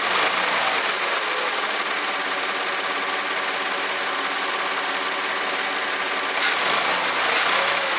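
Audi A4 3.2 V6 engine idling with a heavy valve ticking.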